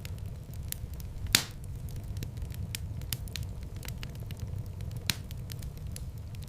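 Wood fire crackling: a steady low rumble of flames under many small sharp snaps, with two louder pops, about a second in and about five seconds in.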